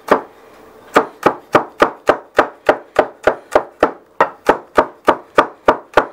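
Chef's knife chopping smashed garlic on a wooden cutting board: a steady run of knocks of the blade against the board, about three a second, starting after a short pause near the beginning.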